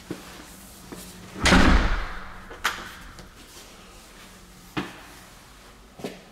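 A door shutting with a loud, deep thud about one and a half seconds in that rings on briefly, with several short sharp clicks and knocks before and after it.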